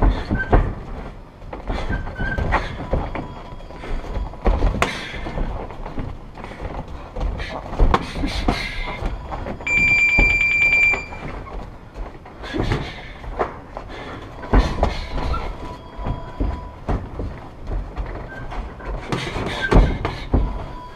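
Muay Thai sparring: irregular thuds of gloved punches and kicks landing on gloves and shin guards. About ten seconds in, a single high electronic beep sounds for about a second and a half.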